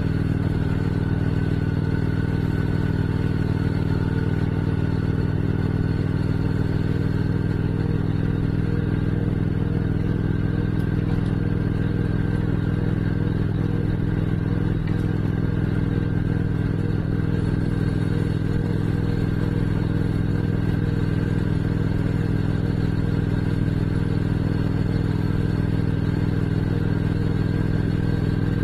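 Motorcycle engine running at a steady cruise, its pitch and level holding even throughout.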